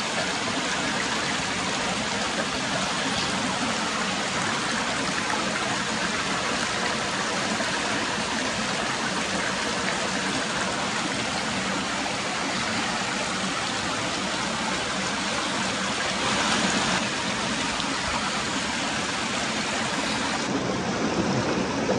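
A small rocky stream running steadily, an even rush of water over stones.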